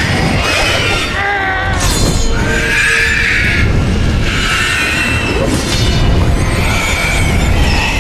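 Loud dramatic film music mixed with fight sound effects, with high wavering shrieks rising over it twice in the middle.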